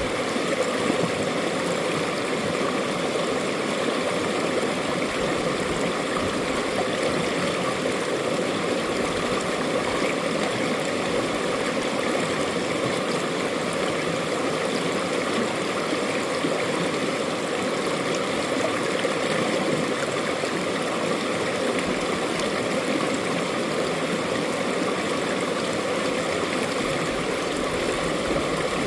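Mountain-valley stream flowing steadily over rocks, an even rushing and gurgling of water with no breaks.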